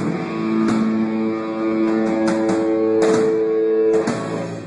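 Live rock band with electric guitar holding ringing notes over drum cymbal hits, playing the closing bars of the song, which die away just before the end.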